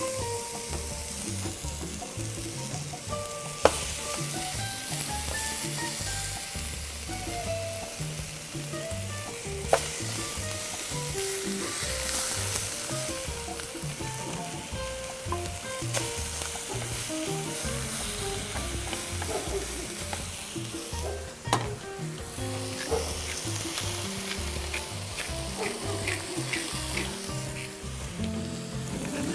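Slices of beef shank sizzling as they sear in a hot frying pan, with a sharp louder spike about four times, as fresh pieces are laid into the hot fat. Faint background music plays underneath.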